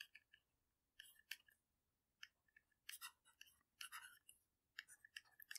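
Faint, irregular tapping and scratching of a stylus writing on a tablet screen, in short strokes.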